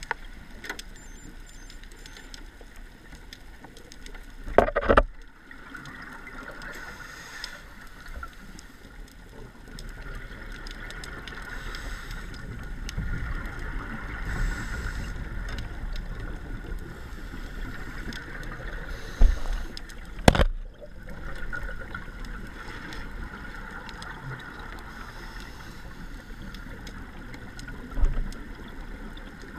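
Underwater scuba-dive sound picked up through a camera housing: a steady low rumble and hiss of water. A few short loud bursts stand out, about five seconds in, twice around twenty seconds, and once near the end.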